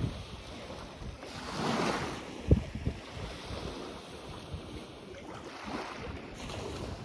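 Sea waves washing onto a sandy beach: one surge of surf builds and falls away about a second in, and another comes near the end. Wind buffets the microphone throughout, with one sharp thump about two and a half seconds in.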